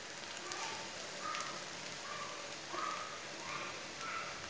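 Oil sizzling softly in a non-stick pan under a frying radish paratha, a steady low hiss.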